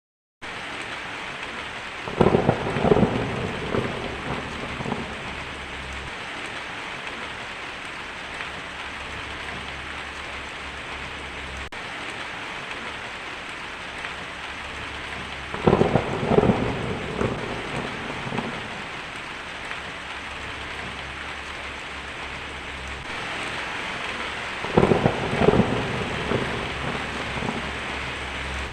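Heavy rain falling steadily on a tin roof, with three rolls of thunder: a couple of seconds in, just past halfway, and near the end, each rumbling and crackling for a few seconds.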